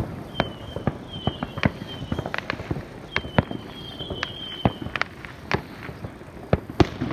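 Fireworks going off: irregular sharp bangs and pops, with a few high, slightly falling whistles each lasting under a second.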